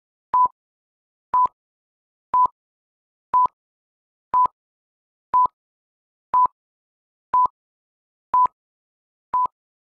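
Film-leader countdown beeps: ten short beeps of one steady pitch, one each second, each with a faint click as it starts and stops.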